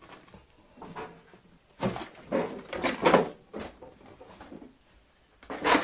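Junk being shifted and knocked about while rummaging through a cluttered storeroom: a string of irregular knocks and clatters, the loudest about two to three seconds in and again just before the end.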